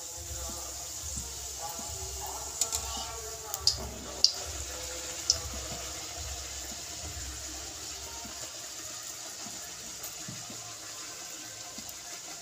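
Luchi deep-frying in hot oil in a metal kadai: a steady sizzle as the bread puffs up. There are a handful of sharp clicks from the metal spatula against the pan in the first half.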